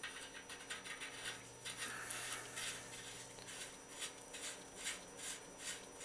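Small scrapes and ticks, a few a second, as a vintage Schwinn bicycle headset's top nut is threaded by hand onto the greased fork threads, metal and gloved fingers rubbing on the threads.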